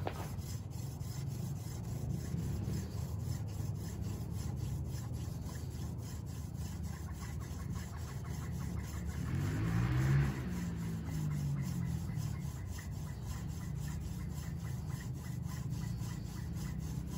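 Hand drill friction fire: a horseweed spindle spun back and forth between the palms, grinding steadily in the notch of a tulip poplar fireboard to build heat for an ember. A passing vehicle swells and fades about ten seconds in, the loudest moment.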